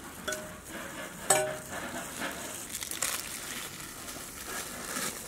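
Foil food pouches rustling and crinkling as they are filled with curry and tied shut by hand, with one sharp ringing clink about a second in.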